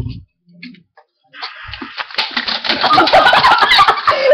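A person spluttering and spewing foaming Diet Coke and Mentos out of the mouth: a wet, fizzing spray full of crackling pops that starts about a second in and grows louder.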